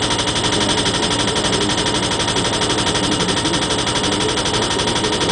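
A 2-inch pipe pile being driven into the ground by a powered driving hammer: rapid, even, continuous hammering.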